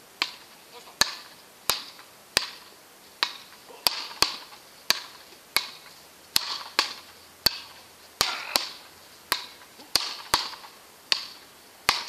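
Wooden paddle rackets hitting a small ball back and forth in a continuous rally. Each strike is a sharp crack, about one and a half a second, and some are louder than others.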